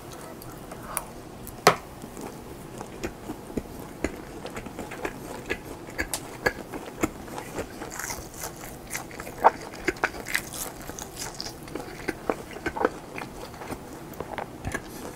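Close-miked biting and chewing of German-style handmade ham: irregular wet mouth clicks and smacks, with two sharper bites, about two seconds in and just past halfway.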